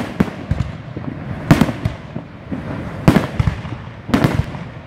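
Aerial fireworks going off: about four sharp bangs roughly a second or so apart, with smaller crackling pops between them.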